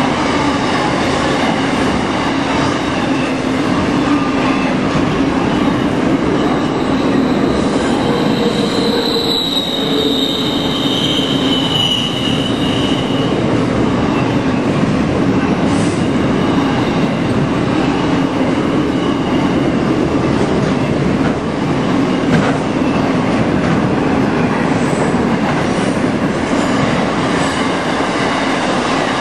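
Freight train wagons rolling past close by at speed: a steady rumble and rattle of wheels on the rails. High-pitched wheel squeal rises in from about 8 seconds in and lasts a few seconds.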